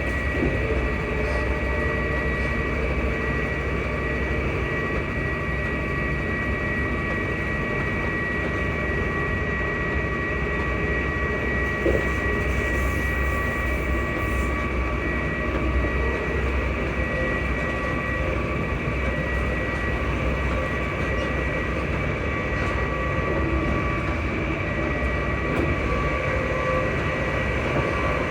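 ScotRail Class 334 electric multiple unit running at steady speed: a continuous rumble with high traction-motor whine tones held at one pitch.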